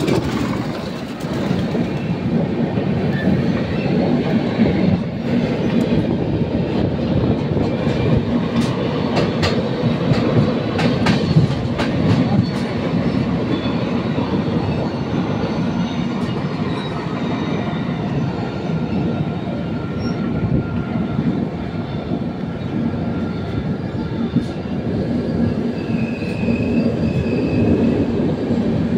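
Passenger train running, heard aboard at an open coach door: a steady rumble of wheels on rail with clickety-clack. A high wheel squeal comes in near the end.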